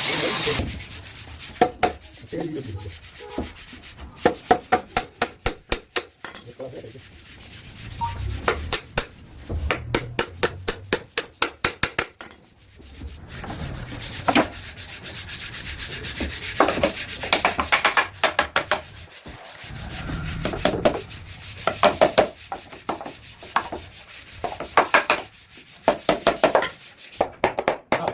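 Wood being hand-sanded in quick back-and-forth strokes, in runs of several strokes with short pauses between them.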